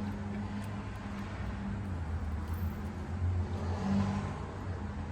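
Steady low mechanical hum over a faint even hiss.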